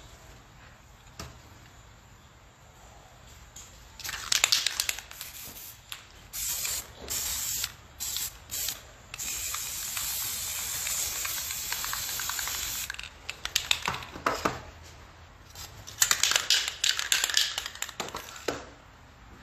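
Aerosol spray paint can hissing in a series of short bursts and one longer spray of about four seconds, with crackly, clicking stretches before and after.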